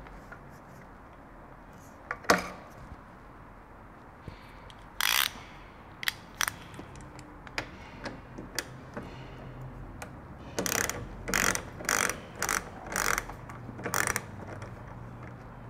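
Socket ratchet wrench clicking as a bolt is undone: a few separate strokes at first, then a quick run of about six strokes about half a second apart near the end.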